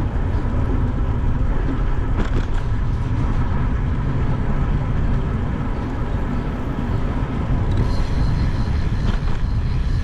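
A steady, loud low rumbling noise, with a faint thin high tone joining about eight seconds in.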